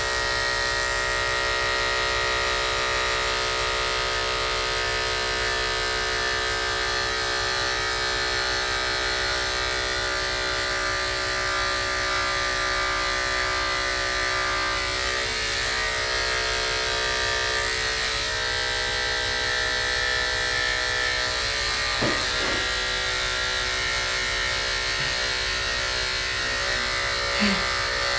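Corded electric dog grooming clippers with a narrow blade running at a steady hum as they clip through a miniature poodle's coat.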